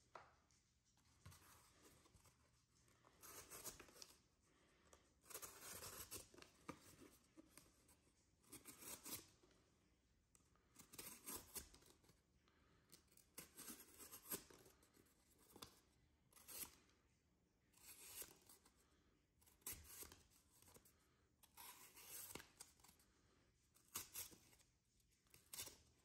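The VG-10 blade of a James Brand Carter XL folding knife slices through corrugated cardboard in a dozen or so faint, rasping cuts, about one every two seconds.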